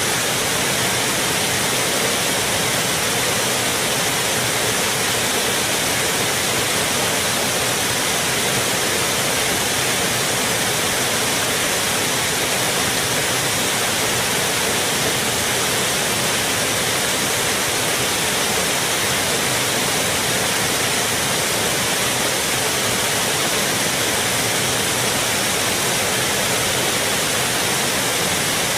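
Fountain water splashing in a steady, unchanging rush.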